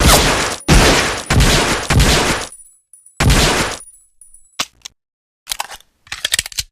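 M1911A1 pistol fired five times: four quick shots about two-thirds of a second apart, then one more after a short pause. Quieter metallic clicks and rattles follow in the last couple of seconds.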